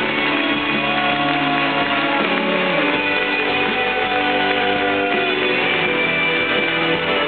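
Live band playing an instrumental passage led by guitar, with steady held notes and no singing.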